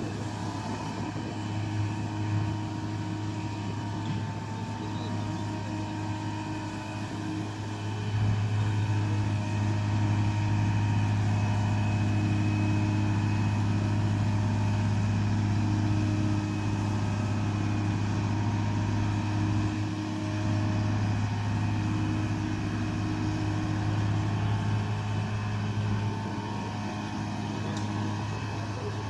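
Mobile crane's engine running with a steady drone under the load of hoisting a mobile home off the ground; it gets louder about eight seconds in and eases slightly a little past halfway.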